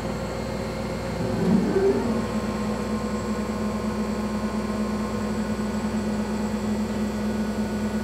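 A CO2 laser cutter running while it cuts acrylic: a steady machine hum. About a second and a half in, a motor tone rises and then holds steady as the cutting head travels.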